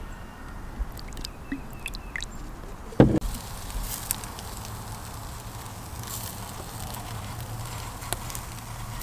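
Charcoal fire in a pit barrel cooker sizzling and crackling under hanging, sauce-glazed ribs, with scattered pops. One sharp thump about three seconds in.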